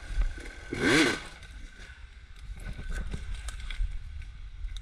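Dirt bike engine running low, with one brief throttle blip about a second in that rises and falls in pitch.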